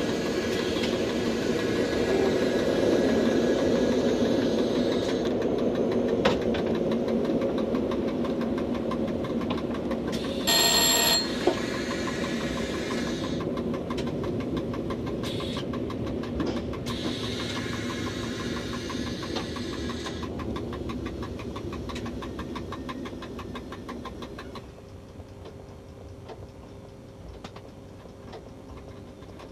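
Electric commuter train running, heard from inside the driver's cab: steady motor and wheel-on-rail noise. A single loud tone lasting about a second sounds some ten seconds in, and the running noise drops clearly about 25 seconds in.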